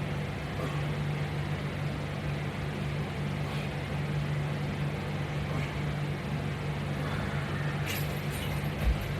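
A steady low hum, like a fan or machine running in a room, with a brief rustle and a single dull thump near the end.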